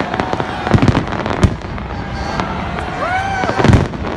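Fireworks display: a dense crackle of many small bursts, with heavier bangs about a second in, again half a second later, and a loud one near the end.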